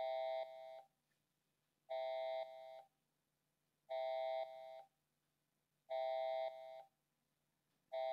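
Horn signal from a homemade siren, a Bluetooth speaker with a plastic cup taped over it: steady horn blasts of about a second, one every two seconds. Each blast steps down in loudness partway through.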